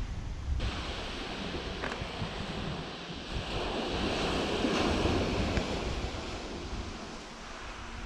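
Sea surf breaking and washing onto a pebble beach, swelling in the middle and easing off, with wind rumbling on the microphone.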